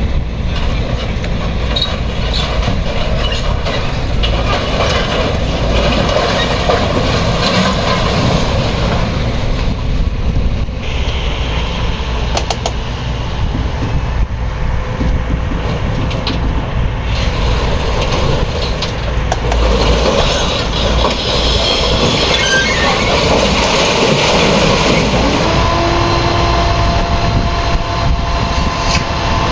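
Hydraulic excavator's diesel engine running steadily under load as its bucket pulls scrap metal off a trailer, with scattered clanks and scrapes of metal in the middle, and a steady whine coming in near the end.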